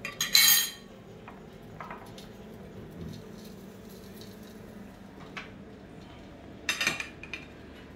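Kitchen utensils and dishes clattering and clinking: a sharp clatter just after the start, a second one about seven seconds in, and a few light knocks between.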